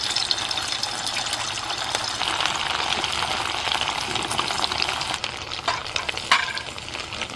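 Pieces of paneer frying in hot oil: a steady, dense sizzle with many small crackling pops.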